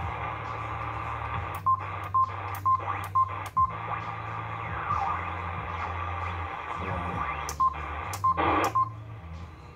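Retevis Ailunce HS4 10-meter radio's receiver hissing with band static through its speaker, over a low hum. A short high beep with a click sounds at each step of the tuning knob: five in quick succession about two seconds in, then three more near the end.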